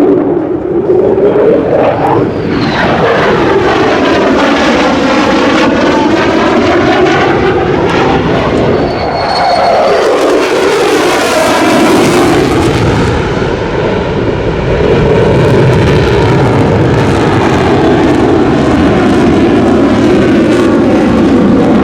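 F-35A Lightning II's single F135 turbofan jet engine during a display flight, a loud continuous jet noise whose tone sweeps up and down as the jet moves past. It is brightest and most hissing about ten to twelve seconds in, at its closest pass.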